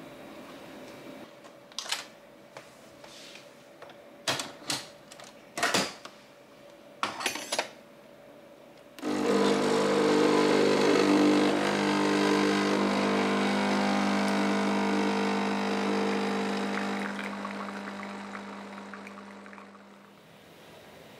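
Capsule coffee machine being operated: several sharp clicks and clacks as the capsule and cup are set and the button pressed, then about nine seconds in its pump starts with a loud steady buzz as coffee is brewed into the cup, gradually fading out near the end.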